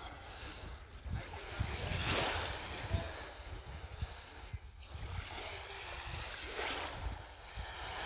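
Small waves washing up a sandy shore, swelling twice, about two seconds in and again near the end, with wind rumbling on the microphone.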